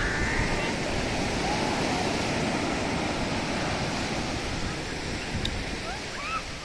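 Ocean surf washing onto the shore: a steady rush of breaking water that eases slightly toward the end.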